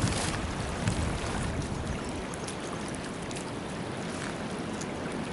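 A small stream running, a steady wash of flowing water, with a few faint clicks.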